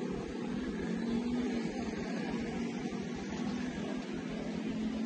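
Steady outdoor background noise: an even rush with a constant low hum and an uneven rumble underneath.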